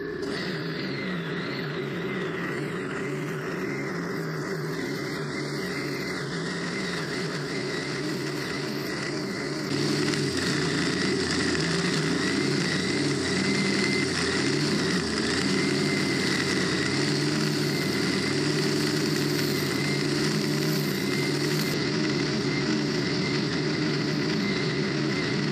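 Stihl FS90R 4-MIX string trimmer engine running under load as the line head cuts grass. It gets louder from about ten seconds in.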